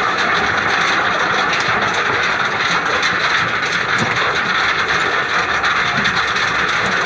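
Tractor-drawn stone picker at work in the field: steady, continuous mechanical rattle and clatter of the machine running through the soil.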